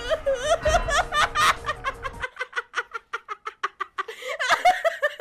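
High-pitched, cartoonish sobbing, a rapid run of short wailing sobs about five a second, over background music that stops about two seconds in.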